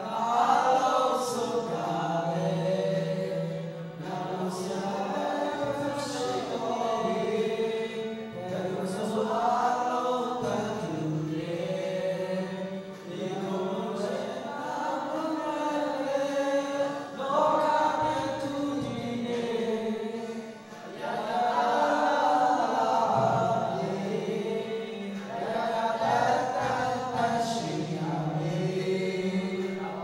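A group of men singing a song together, voices through a handheld microphone.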